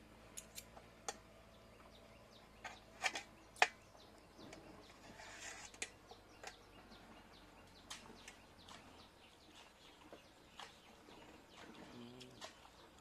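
Metal fork clinking and scraping against an enamel plate while pulling apart boiled chicken: a series of short sharp clicks, the loudest pair about three seconds in.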